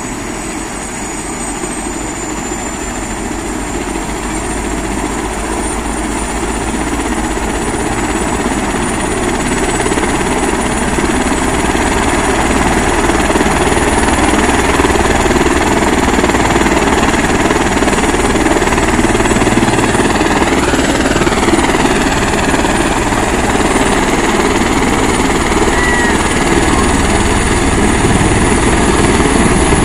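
Helicopter's turbine engine and main rotor running on the ground: a steady rotor noise with a thin high turbine whine, growing gradually louder as it powers up for take-off.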